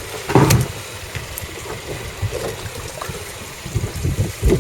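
Water sloshing and gurgling around a fishing boat over a low rumble, with one sharp splash or knock about half a second in.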